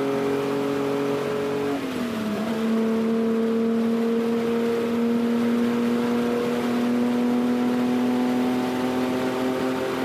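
Race car engine running hard at steady revs. About two seconds in, the engine note slides down to a lower pitch, then holds steady there.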